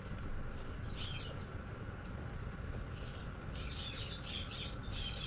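Birds chirping in quick clusters of short high notes, once about a second in and again in a longer run from about three and a half seconds, over a steady low hum.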